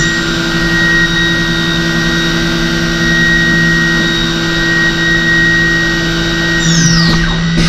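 CNC machining centre spindle running at steady high speed with a high whine, over the hiss of coolant jetting from the tool holder. Near the end the whine sweeps down in pitch as the spindle slows.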